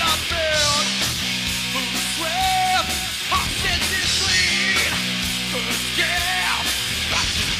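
Live rock band playing loud, with distorted electric guitars, bass and drums. The low chords break off and restart every couple of seconds in a riff, with shouted vocals in places.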